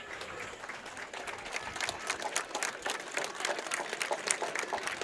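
Stadium crowd applauding, the clapping growing denser and louder about two seconds in.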